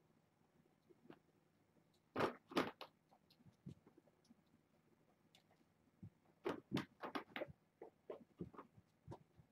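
Kittens playing and being handled on a rug: short scattered scuffs and knocks, a pair about two seconds in and a quick cluster around six to seven seconds, over a quiet room.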